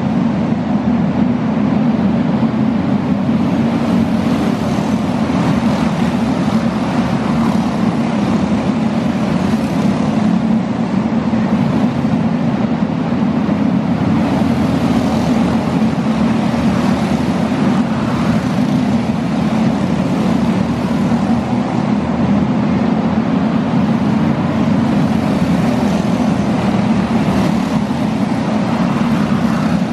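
A beginner box stock outlaw kart's small single-cylinder four-stroke engine running hard at race speed, heard from a microphone on the kart. It is a steady, loud drone.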